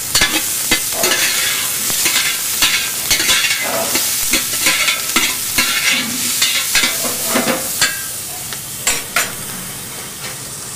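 Chopped onion, carrot and celery sizzling in olive oil in a copper pot, with a utensil scraping and knocking against the pot as they are stirred. The stirring tapers off near the end while the sizzling goes on.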